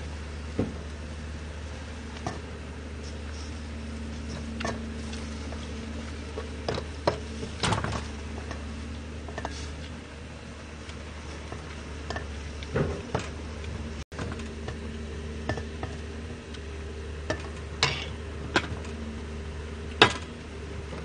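Hand mixing spicy marinated pork in a stainless steel bowl: scattered light clicks and knocks against the bowl over a steady low hum. Near the end a sharper clank as the lid is lifted off a steaming pot.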